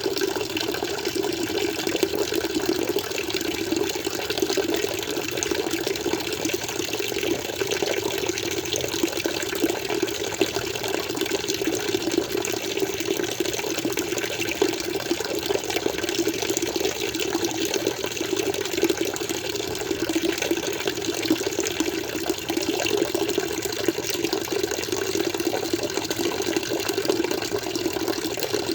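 Water flowing steadily in an aquarium, an even, unbroken rush of water.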